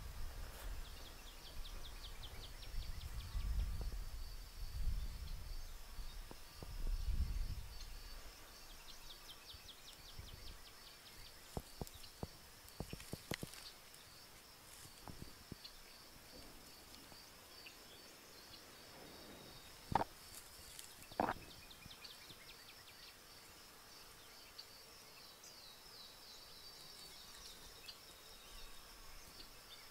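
Long breaths blown into a smouldering tinder bundle to coax the coal into flame, three strong puffs in the first several seconds, then a scatter of small crackles and two sharp cracks about twenty seconds in. A steady high chirring runs underneath.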